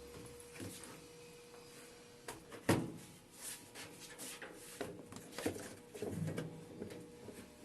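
Scattered knocks and clicks of parts being handled as a washing machine's suspension rod is unhooked from the tub, with one sharper knock about three seconds in, over a faint steady hum.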